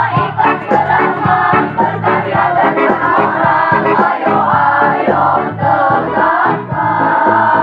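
Choir singing a march song in parts over instrumental backing, holding long notes in the second half.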